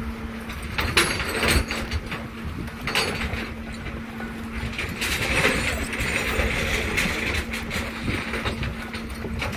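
A vehicle-recovery rig pulling a submerged truck out of a lake on a tow line: a machine runs with a steady hum that stops near the end, with water sloshing and a few sharp clunks.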